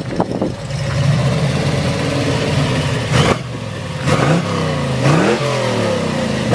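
De Tomaso Pantera's V8 running at idle with its engine lid open, then revved up and back down twice in quick succession. A sharp noise about three seconds in.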